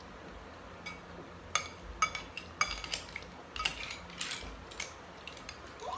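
Cutlery clinking against plates and bowls while eating: a scattered run of short, sharp clinks, some with a brief ring, most of them from about one and a half to five seconds in.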